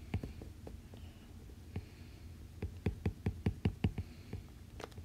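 A quick run of light taps on an iPad's glass screen, about six a second for a second and a half midway, with a few single taps before it.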